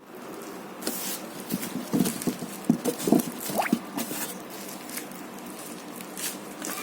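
Irregular rustling, scratching and tapping of a package being handled and opened, with a short rising squeak about three and a half seconds in.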